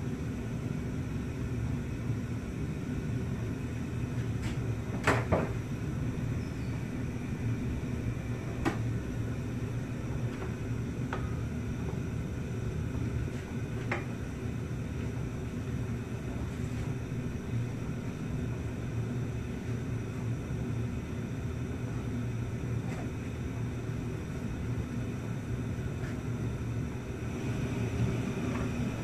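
Steady low hum in a kitchen with a wok cooking on a gas stove, broken by a few sharp clicks and taps as the food in the wok is handled, the loudest about five seconds in.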